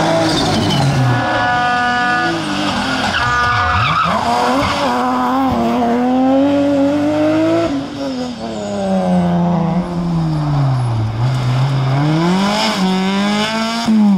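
Rally car engines revving hard, the pitch rising and dropping again and again through gear changes, braking and acceleration as several cars pass one after another. The cars include a Ford Fiesta Rally4, a BMW 3 Series and a Peugeot 206. About one to three seconds in there is a brief steady high squeal.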